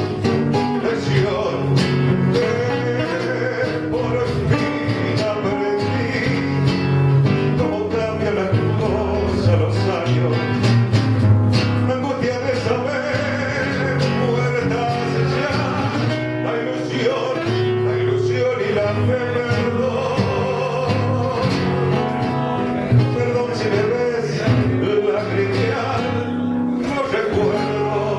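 A man singing a tango, accompanied by a classical guitar played with fingers.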